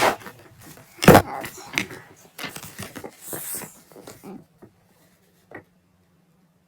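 A loud thump about a second in, followed by a few seconds of scattered clattering and rustling, and one small click a little later.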